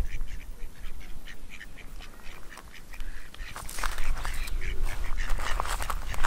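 Ducks quacking in quick runs of short calls, louder from a little past the middle, over a low steady rumble.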